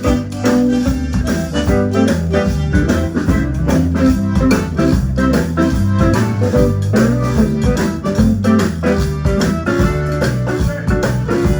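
A band playing, with an organ-like keyboard to the fore over bass and a steady drum beat.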